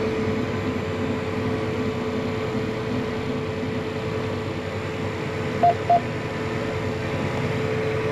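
Steady drone of running farm machinery, a tractor engine and fan, with a constant hum. Two short electronic beeps sound about five and a half seconds in.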